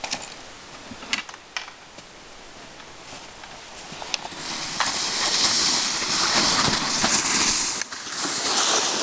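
A few crunching footsteps in snow, then, from about four seconds in, a loud steady hissing scrape as a loaded plastic sled slides over the snow right beside the microphone.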